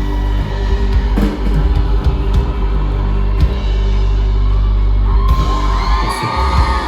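Live rock band playing an acoustic arrangement, with held chords and drum hits. From about five seconds in, shouting voices rise over the music.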